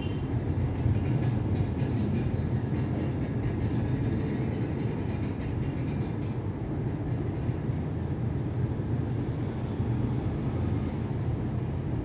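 Panasonic F-EY1511 ceiling fan running: a steady low hum and rush of the motor and turning blades, with a light rapid clicking over the first half.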